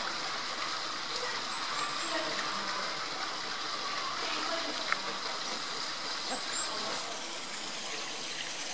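Steady rush of running water at the enclosure's pool, with a few faint, short, high chirps and one sharp click about five seconds in.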